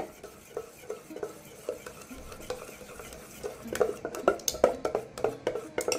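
Metal spoon stirring thick dosa batter in a stainless steel pot, with wet stirring and spoon clinks against the pot's sides; the clinks come faster and louder about halfway through. The batter is being mixed and thinned with water to the right consistency.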